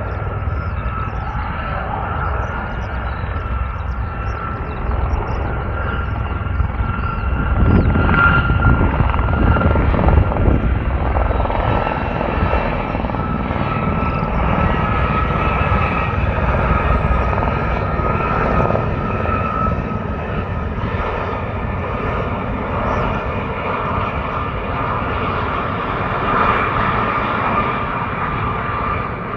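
Aircraft engine running as the aircraft flies past, with a steady high whine over it, growing loudest about eight to ten seconds in.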